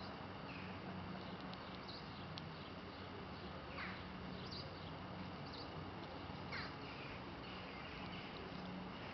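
Outdoor ambience: a steady low hum with a few short, falling high-pitched calls scattered through it.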